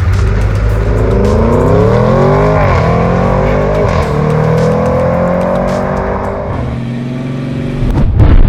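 Audi RS6 C8's twin-turbo V8 with a full Akrapovic exhaust accelerating hard, its pitch rising and dropping back twice at quick upshifts, with music underneath. A loud hit comes near the end.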